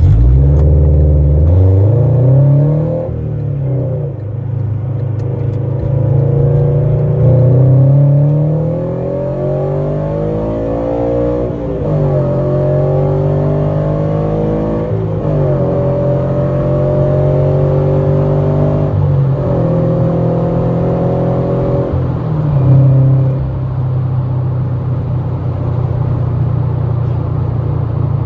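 Subaru BRZ's flat-four boxer engine, breathing through a Tomei unequal-length header, a Berk high-flow catted front pipe and a loud aftermarket cat-back exhaust, heard inside the cabin with the windows up. It comes on hard, climbs in pitch through several upshifts, then settles into a steady cruising drone.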